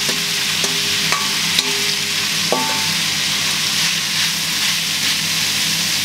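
Minced meat sizzling in a hot frying pan as it goes in and is broken up, with a few light metallic clinks from the steel bowl and utensils in the first three seconds. A low steady hum from a Monsieur Cuisine Connect cooking machine running under it.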